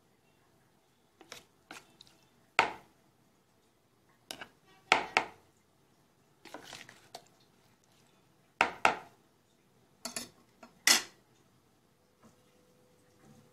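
A metal spoon clinking and knocking against a bowl while stirring chopped, marinated liver, in irregular single knocks with a few louder ones.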